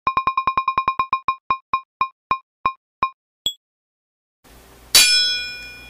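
Electronic logo-intro jingle. One short note repeats rapidly, then slows and spreads out, followed by a single higher ping. After a brief pause, a loud struck chord hits about five seconds in and rings out, fading.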